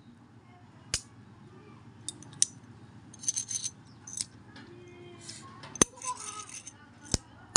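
Metal coins handled in the fingers: a few sharp clicks, the loudest near the end, between short bursts of light metallic clinking and scraping.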